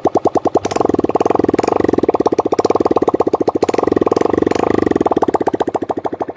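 Honda CG Start 160 single-cylinder four-stroke motorcycle engine idling through an open exhaust with its muffler removed, giving a loud, evenly spaced popping. Twice the throttle is opened a little, and the pops come faster and louder before settling back to idle.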